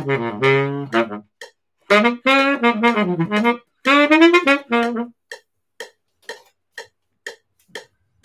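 Baritone saxophone playing a phrase of short, clipped notes and quick runs that stops about five seconds in. After that only a metronome is left, clicking about twice a second.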